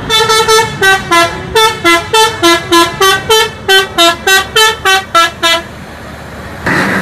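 Tour bus's multi-tone musical horn (Indonesian 'telolet' horn) playing a quick tune of about twenty short notes, which stops about five and a half seconds in. A louder rushing noise starts near the end.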